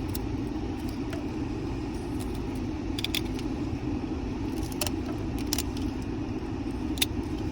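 Serrated blade of a Leatherman Charge multitool cutting and scraping the wood of a carpenter pencil: a few short, sharp scratches and clicks about three, five and seven seconds in, over a steady low hum.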